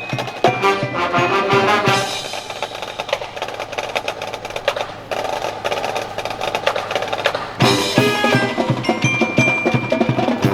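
A high school marching band: brass chords cut off about two seconds in, leaving a sustained drum roll. Near the end the drums and mallet percussion such as bells or glockenspiel come in with a steady beat.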